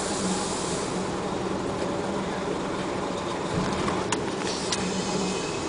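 Large dump truck's diesel engine running steadily under heavy mechanical noise, with a few sharp metallic clicks about four to five and a half seconds in.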